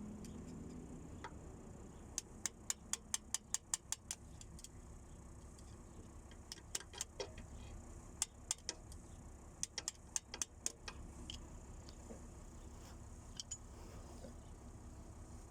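Light metallic clicks and taps from hand tools and engine parts being handled during main bearing work on a Land Cruiser 79 engine. A quick run of about eight evenly spaced clicks comes about two seconds in, then scattered clusters of clicks.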